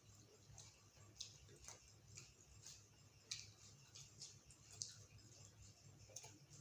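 Faint eating sounds close to the microphone: soft irregular clicks of chewing and lip smacks over a low steady hum.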